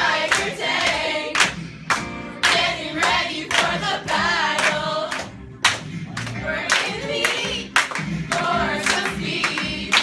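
A group of voices singing a jingle together, with sharp claps about twice a second.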